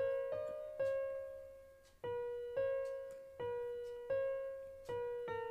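Background piano music: slow single notes, each struck and left to fade.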